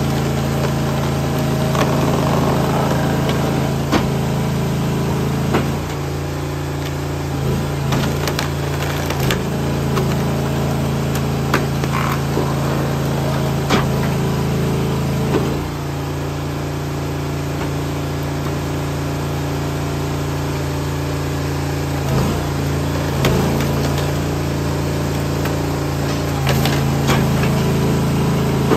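The engine of an Eastonmade 22-28 hydraulic wood splitter runs steadily, and its sound changes every few seconds as the splitter works under load. A big log splits on the box wedge with several sharp cracks and knocks of wood breaking apart.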